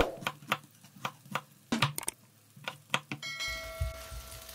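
Chef's knife slicing through an onion and knocking on a wooden cutting board, a sharp tap about three to four times a second. A steady bell-like ringing tone comes in about three seconds in.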